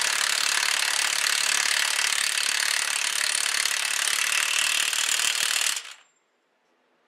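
Impact wrench hammering steadily as it runs the front hub's axle nut down, stopping abruptly about six seconds in.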